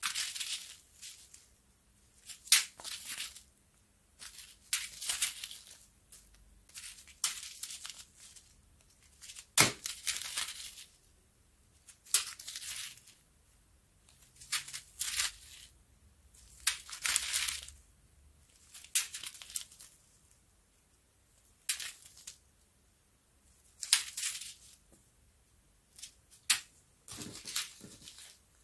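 Small plastic zip bags of square diamond-painting drills crinkling as they are picked up, handled and set down one after another, in short bursts every second or two. One sharper click comes about ten seconds in.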